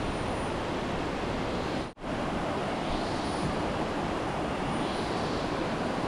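Steady rushing of a jungle river's rapids, a dense even roar that cuts out for an instant about two seconds in.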